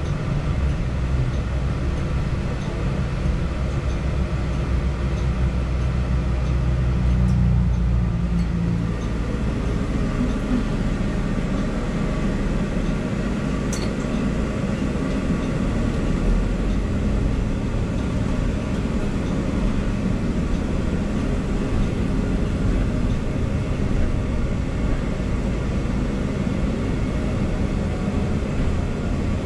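Cabin noise of a moving city bus: a steady engine and road rumble that swells briefly about a quarter of the way in.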